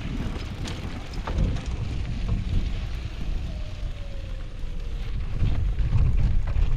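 Wind buffeting the microphone of a camera on a moving bicycle, a fluctuating low rumble, with a few light clicks and rattles from the bike.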